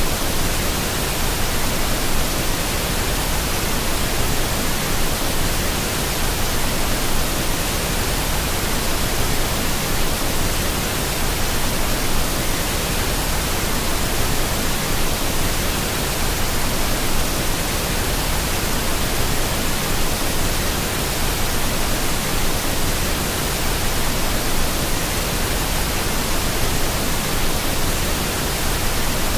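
Several streams of a waterfall crashing down rock into a pool: a steady, even rush of water.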